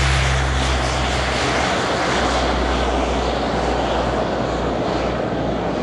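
Lockheed P-3C Orion's four Allison T56 turboprop engines at take-off power as it lifts off and climbs away: a steady roar with a low propeller hum, both slowly fading as the aircraft draws off.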